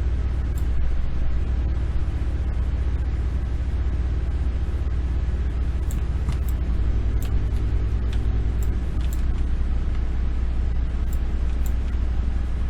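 Steady low background rumble, with about ten faint, short clicks scattered through it, like computer mouse clicks.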